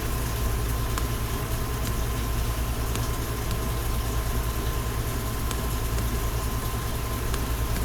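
Steady low machine rumble with a quick, even pulse, like an engine idling, with a faint steady whine above it and a few soft ticks.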